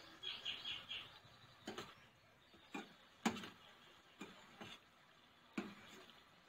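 Metal kitchen tongs clinking and knocking against a stainless steel frying pan as donuts frying in oil are turned: a handful of sharp clicks, the loudest about three seconds in. A quick run of four short high chirps comes in the first second.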